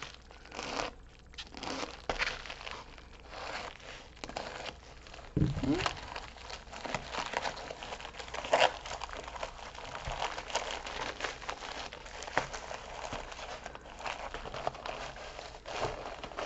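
Plastic packaging around a diamond painting kit crinkling and tearing as hands pull at it, with irregular crackles throughout and a low knock about five seconds in.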